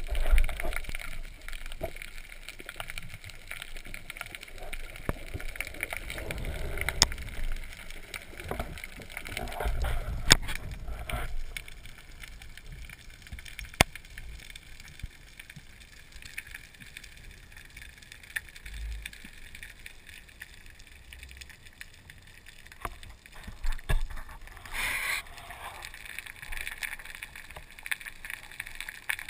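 Underwater sound picked up through an action camera's housing on a breath-hold dive: muffled rushing and low surges of water as the diver moves, a few sharp clicks, and a short hissing burst near the end.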